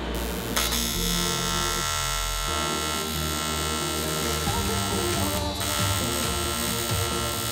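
TIG welding arc buzzing steadily as a weld bead is laid on the aluminium-tube go-kart frame. The arc strikes just over half a second in and breaks off briefly near the middle.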